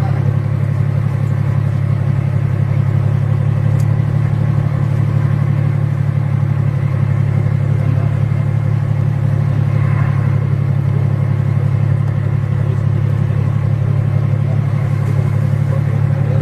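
A boat's engine running steadily, a loud, even low drone.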